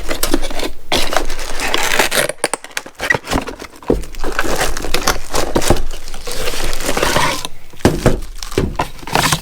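Cardboard tool box being opened and its paper and plastic packaging handled: crinkling, rustling and tearing with scattered clicks, easing off briefly about two and a half seconds in.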